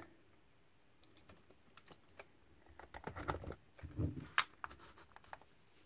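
Scattered clicks and small knocks of a Velleman DVM68 handheld digital multimeter being handled, its rotary range switch being turned. The clicks bunch together in the second half, with one sharper click a little after four seconds.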